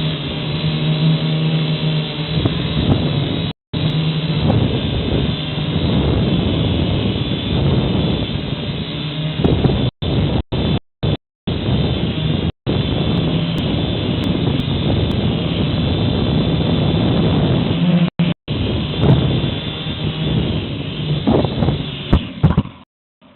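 Syma X5HW quadcopter's electric motors and propellers whirring, mixed with wind buffeting the on-board camera microphone. The audio cuts out completely for moments several times and stops shortly before the end.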